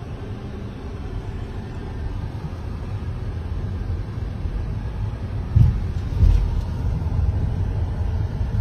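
Road and engine noise inside a moving car's cabin: a steady low rumble, with two short louder thumps a little past halfway.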